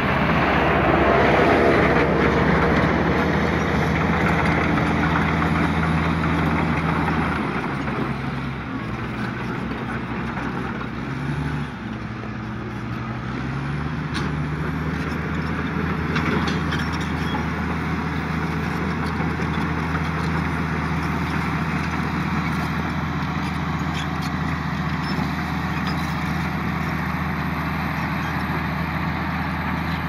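Diesel dump truck engine running steadily. Its pitch drops about a quarter of the way in, then climbs back about halfway through and holds steady.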